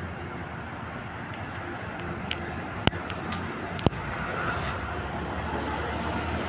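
Rubber-tyred Paris Métro Line 6 train rolling across the Bir-Hakeim viaduct, a steady rumble mixed with city road traffic that grows louder in the second half. A few sharp clicks come around the middle.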